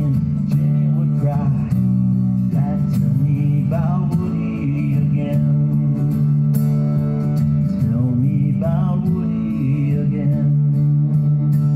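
Steel-string acoustic guitar strummed in a folk song, its chords ringing steadily.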